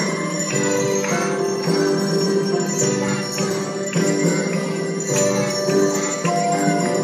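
Children's handbell ensemble playing a tune, the bell notes ringing out and overlapping at about two strikes a second.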